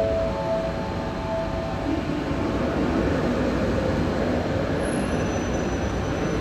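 Steady rumbling background noise of a large railway station train shed with high-speed trains at the platforms. In the first second or two a few short tones step up in pitch.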